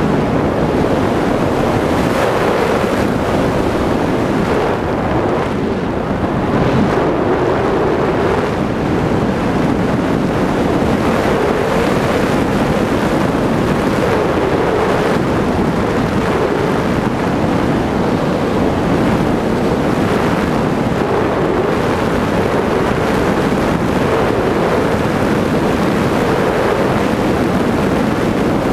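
Steady rush of wind buffeting the microphone of a camera mounted on a foam RC plane in flight.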